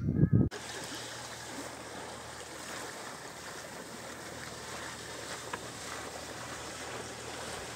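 Steady rush of wind and water along the hull of a Sadler 26 sailing yacht under way: an even hiss with no distinct events. A loud low rumble in the first half second cuts off abruptly.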